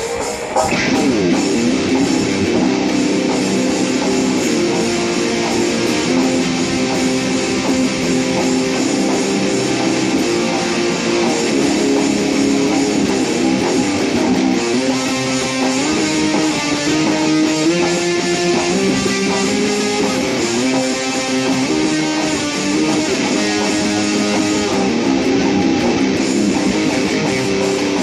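Dean Dime Floyd ML electric guitar being played, a line of held notes stepping up and down in pitch.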